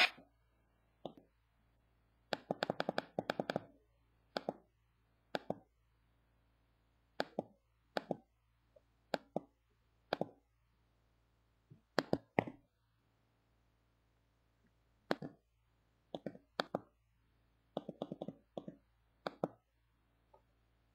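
A ringtone made of short popping, plopping sounds, some single and some in quick runs of several, coming at irregular intervals.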